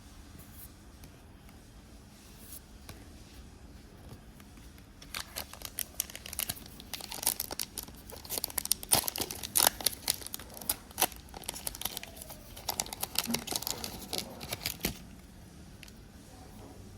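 Foil wrapper of a Pokémon card booster pack being torn open and crinkled: a dense run of crackling and rustling that starts about five seconds in and stops shortly before the end.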